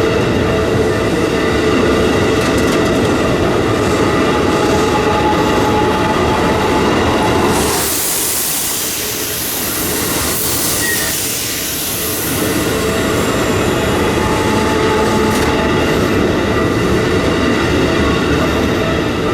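Electric train on the Keikyu Airport Line running over the level crossing, its wheels clattering on the rails, with steady tones over a dense rumble. About eight seconds in, the low rumble eases for a few seconds while a high hiss rises, then the rumble returns.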